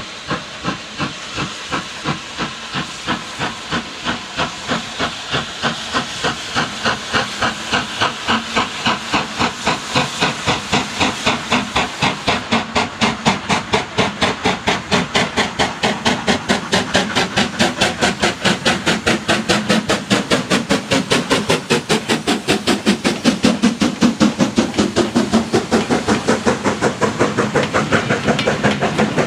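LMS Stanier Black Five 4-6-0 steam locomotive 45305 working hard with a passenger train, its exhaust beats coming evenly and quickening as it draws near, growing louder. Near the end, the coaches roll past.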